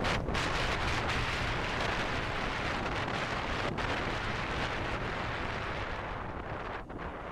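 Wind rushing and buffeting over the microphone of a camera on a moving Royal Enfield Himalayan motorcycle, with the bike's engine running low underneath; it eases slightly near the end.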